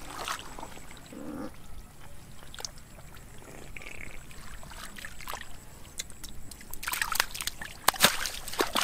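Splashing and sloshing in shallow muddy water as a man wades and gropes through it by hand. A louder flurry of splashes comes near the end, as a caught fish lands in a plastic tub of water.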